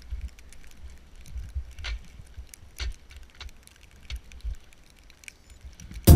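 Single-speed mountain bike rolling through snow: irregular crunching and rattling clicks from the tyres and bike over a low uneven rumble. Loud music with a heavy beat cuts in at the very end.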